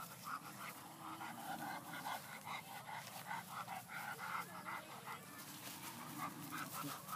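Siberian husky whining and panting in short quick bursts, worked up at the sight of a kitten it is straining toward on the leash.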